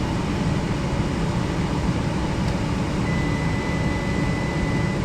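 Gas furnace running steadily, a constant low-heavy hum of its blower and burners. About three seconds in, a thin, steady high-pitched tone starts and holds.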